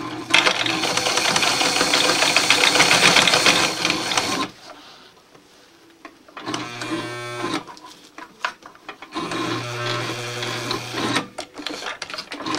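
Electric sewing machine stitching a corner seam to reinforce it. It runs in three bursts: a long run of about four seconds, then two short runs, with pauses between.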